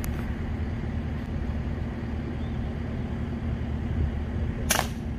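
A steady low mechanical hum with a constant tone. About four and a half seconds in comes a single short, sharp crack, the report of a shrouded PCP air rifle shot.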